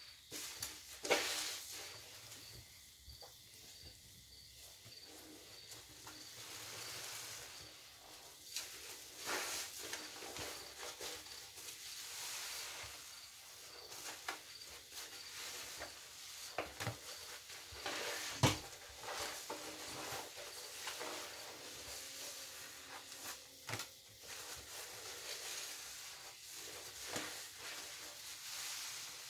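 A soapy sponge squeezed and kneaded in a basin of thick suds: foam fizzing and crackling, with repeated short wet squelches. The loudest squelches come about a second in and about 18 seconds in.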